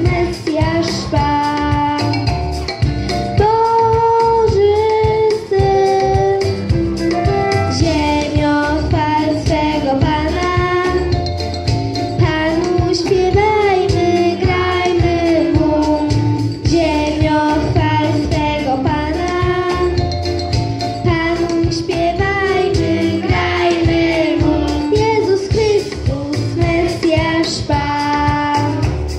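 A girl singing a song solo into a microphone over an instrumental backing with a steady beat.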